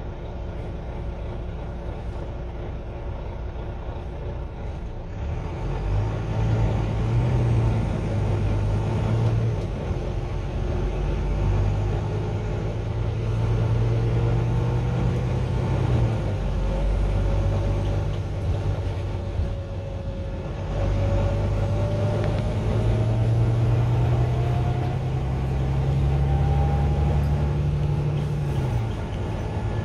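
A single-decker bus's diesel engine and drivetrain heard from inside the passenger saloon as the bus drives along. The low engine drone steps up and down in pitch several times, and a thin whine climbs slowly in pitch through the second half.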